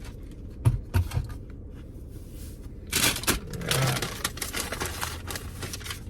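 Takeout bag being rummaged through: a few light knocks in the first second or so, then steady crinkling and rustling of the bag from about three seconds in as the food and napkins are handled.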